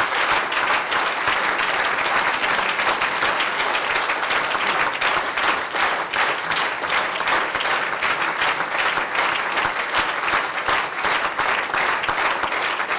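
Audience applauding at length, many hands clapping in a dense, steady patter.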